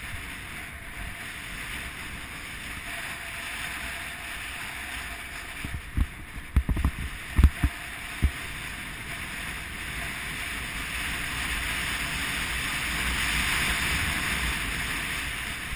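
Skis sliding fast over groomed snow with wind rushing over the camera microphone: a steady hiss that swells a little toward the end. A few loud, low thumps come about six to eight seconds in.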